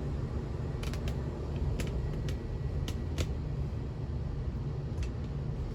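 Ceiling fans running: a steady low hum and rumble with scattered light clicks.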